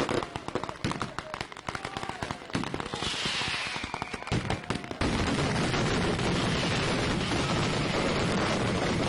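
Fireworks going off at ground level in rapid, irregular cracks and bangs. About five seconds in the sound turns into a dense, continuous crackle.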